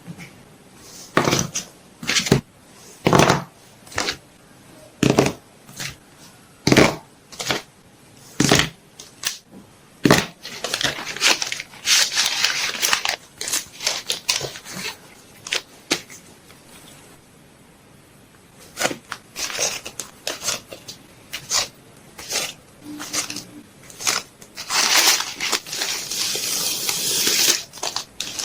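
Packing sounds: a string of sharp taps and knocks over the first ten seconds or so, then longer stretches of packaging crinkling and rustling, twice.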